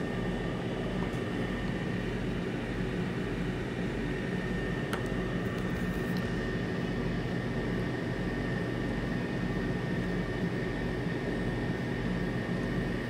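Pampered Chef air fryer oven running mid-cook: a steady fan hum with a thin high whine. A single light click about five seconds in.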